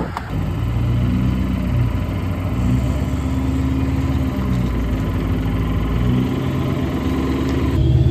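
Truck engine running steadily with a low hum, its pitch shifting slightly a few times.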